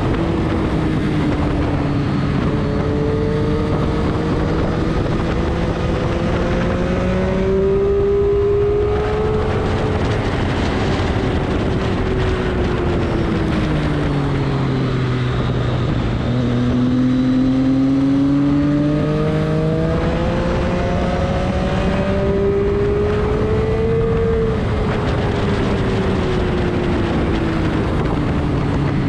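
A vehicle's engine running hard around a race track, its pitch climbing and falling in slow, smooth swells, highest about a quarter of the way in and again near the end, lowest around the middle.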